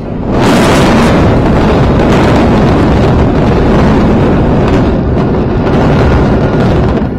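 Controlled explosive demolition of the Supertech twin towers: blast charges and collapsing concrete. It sets in suddenly as a loud, continuous rumble and runs on steady for about seven seconds, easing near the end.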